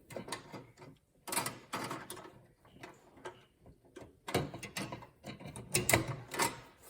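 A PCIe Wi-Fi card being fitted into a motherboard slot: irregular clicks, taps and scrapes of the card and its metal bracket against the case, loudest in the second half.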